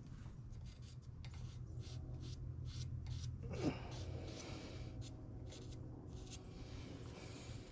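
Sharpie marker drawn in short scratchy strokes across stainless steel exhaust tubing, with a brief falling squeak about three and a half seconds in. A steady low hum runs underneath.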